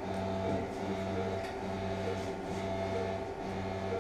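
Steady electric hum of operating-room equipment: a low drone with a thin higher tone above it, dipping briefly about once a second.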